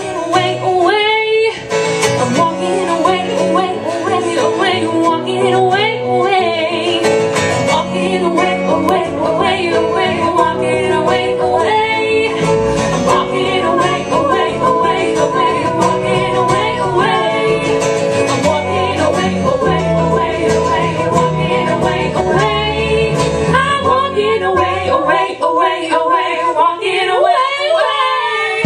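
Live band playing a song: a woman's lead vocal with female harmony singers over strummed acoustic guitar and bass.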